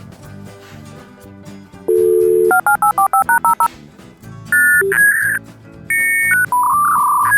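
Background music with a series of loud electronic beeps and tones laid over it: one held tone, then a quick run of about ten short two-tone beeps like a phone keypad being dialled, then more held and warbling tones.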